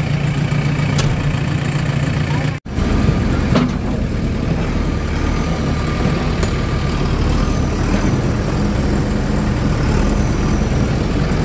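Diesel engine idling steadily, with a momentary break in the sound about two and a half seconds in and a few light clicks over the top.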